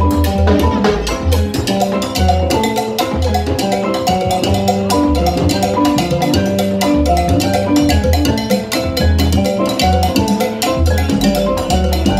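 Live salsa band playing an instrumental passage: quick mallet-struck melody notes over a rhythmic upright bass line and dense hand and stick percussion.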